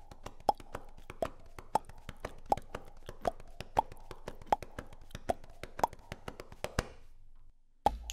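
A rapid, irregular series of sharp clicks and plops, with a stronger one about every half second, over a faint steady hum. It stops abruptly about seven and a half seconds in.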